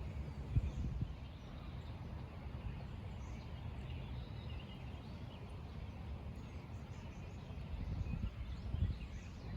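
Outdoor ambience: faint, scattered birdsong over a low rumble of wind on the microphone, with a few soft thumps.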